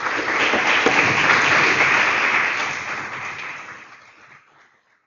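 Audience applauding after a lecture, a dense patter of many hands clapping that fades away over the last two seconds or so.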